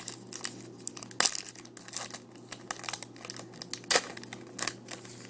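Foil trading-card pack wrapper crinkling and tearing open, with irregular crackles and sharp snaps as the cards are handled. The loudest snaps come about a second in and near four seconds.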